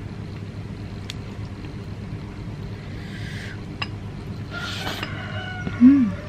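A person eating rice and instant noodles by hand over a steady low hum. There are a few small clicks, then noodles are slurped about four and a half to five seconds in. Just before the end comes a short rising-and-falling tone, the loudest sound.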